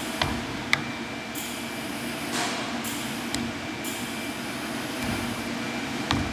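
A flat-bladed kamaboko knife scraping and smearing pink fish paste over a kamaboko and across a plastic cutting board in several swishing strokes, with a few sharp clicks of the blade against the board. A steady background hum runs underneath.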